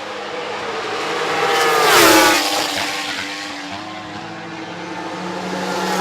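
MotoGP racing motorcycles at high revs passing by, the engine pitch dropping sharply as each goes past: once about two seconds in and again at the end.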